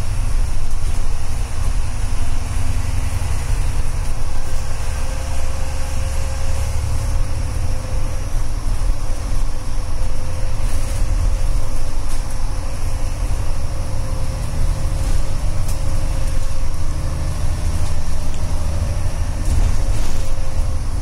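Inside a VDL Gemini double-decker bus on the move, heard from the front of the upper deck: a steady, loud low rumble of engine and road noise. A faint whine drifts slowly up and down in pitch.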